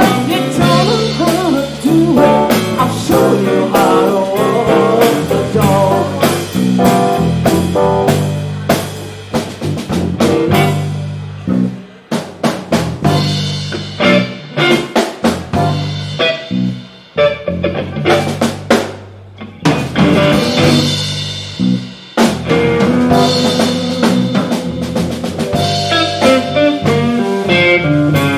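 Live blues band playing an instrumental passage: Tama drum kit, electric guitar through an Egnater amp, keyboard and bass guitar. Through the middle the sustained notes thin out to sharp drum hits and short stabs with brief drops in loudness, and the full band fills back in near the end.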